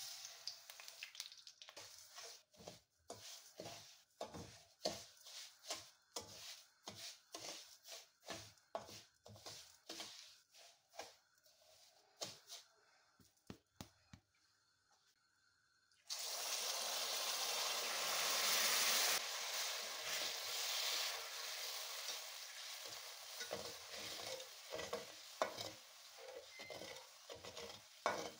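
Flat metal spatula scraping and stirring sugar in a metal pot in quick repeated strokes. About sixteen seconds in, liquid goes into the hot pot with a sudden loud hiss that eases off as the stirring goes on and the sugar turns to syrup.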